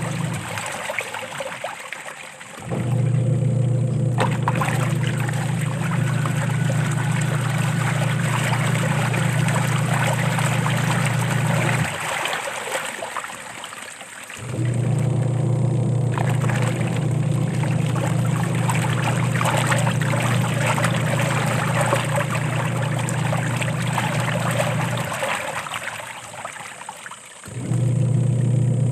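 Washing machine on its wash cycle: water sloshes and splashes steadily while the drum motor hums in runs of about ten seconds. The hum stops for two or three seconds between runs, about twelve seconds in and again near the end.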